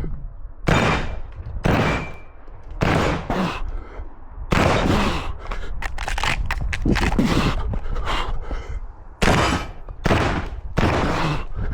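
Semi-automatic shotgun firing a string of loud shots on a practical-shooting stage, most about a second apart, each with a ringing echo, and a quicker cluster of shots in the middle.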